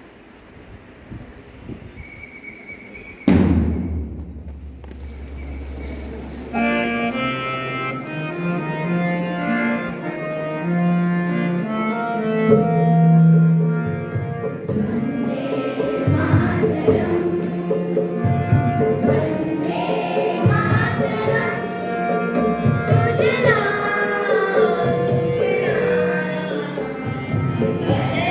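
A loud thump with a low rumble about three seconds in, then instrumental music: a sustained melody from about six seconds in, joined by regular drum beats about halfway through.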